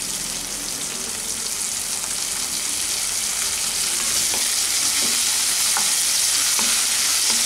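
Sliced vegetables (onion, carrot, green beans, capsicum) sizzling in hot oil in a non-stick kadai, the sizzle growing slowly louder. From about four seconds in, a wooden spatula stirs and scrapes through them with a few light clicks against the pan.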